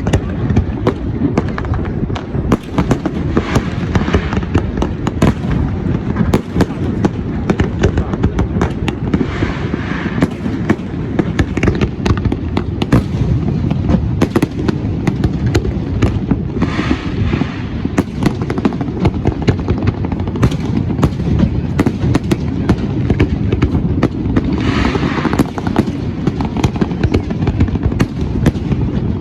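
Fireworks display: a continuous barrage of exploding shells and bangs over a deep rumble, with a higher crackle swelling up about four times.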